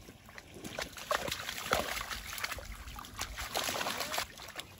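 Dogs splashing through shallow muddy water as they run and tussle, a quick, irregular series of splashes that starts about half a second in.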